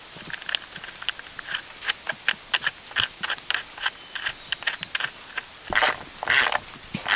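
Ratchet wrench tightening a bolt through a wooden post: a string of sharp single clicks, then longer, louder rasps near the end.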